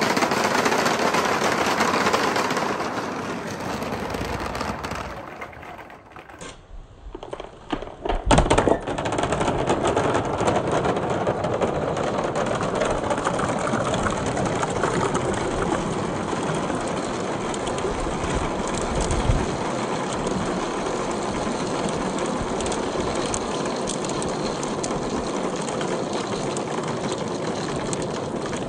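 Hundreds of glass marbles and larger balls rolling down a long perforated-board chute: a dense, continuous clattering rattle. It dies away around five or six seconds in, a few loud knocks follow near eight seconds, and then the rattle resumes steady as marbles pour off the chute's end into a tub of water.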